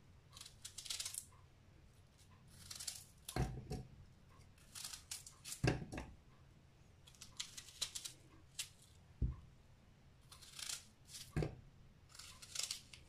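Knife cutting chunks off a raw onion held in the hand, with short crisp crunches every second or so. Four dull knocks come as pieces drop into the plastic bowl of a mini chopper.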